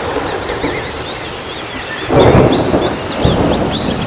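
Deep, gusty rumbling noise that swells loudly twice, about two and three seconds in, with small birds chirping high above it.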